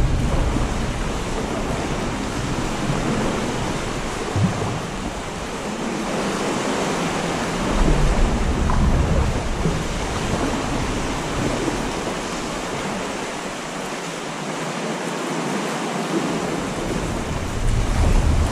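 Sea swell washing and sloshing against rock inside a sea cave, a steady wash of water with a low rumbling surge about eight seconds in and another near the end.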